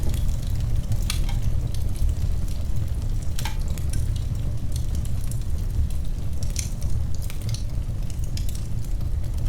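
Wood fire crackling in a fireplace: scattered sharp pops and snaps over a steady low rumble of the flames.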